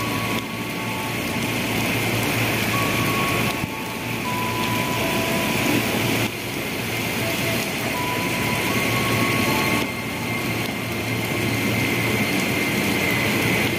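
Heavy rain pouring down in a steady hiss while a 205-series KRL commuter electric train rolls slowly past, its running noise mixed into the rain. Short faint high tones come and go.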